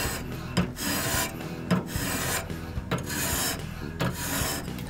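Sharpening stone of a guided fixed-angle knife-sharpening system drawn repeatedly along a steel knife edge: a steady run of rasping strokes, about two a second.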